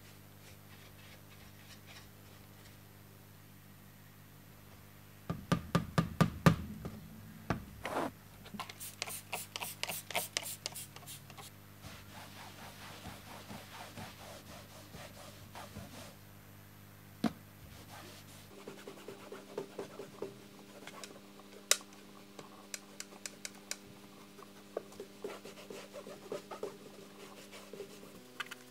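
A sponge and cloth scrubbing and wiping the textured covering of an old tape recorder case by hand. Faint for the first few seconds, then runs of quick rubbing and scratching strokes, loudest about six seconds in, with a few sharp knocks scattered through.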